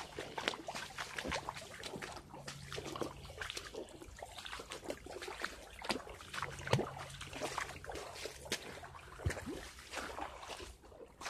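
Footsteps sloshing through a shallow creek, with water trickling and many irregular small splashes and clicks.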